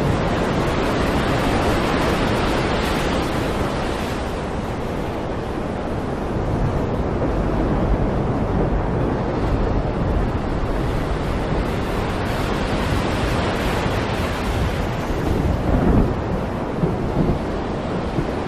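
Stormy sea: a steady rush of waves and wind that swells and eases, with low rolls of thunder, heaviest near the end.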